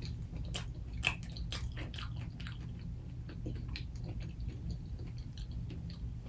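A person chewing food close to the microphone with the mouth closed, making wet smacking clicks. The clicks come thickest in the first couple of seconds, then go on more softly.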